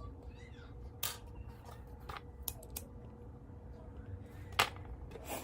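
Scattered sharp clicks and scrapes of a small hand tool trimming the end of a fishing rod tip so a replacement tip guide will fit, the loudest two near the end.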